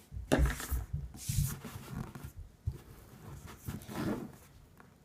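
Kinetic sand being pressed and packed together by hand into a ball: irregular rustling and soft thumps, busiest in the first second and a half, with another flurry about four seconds in.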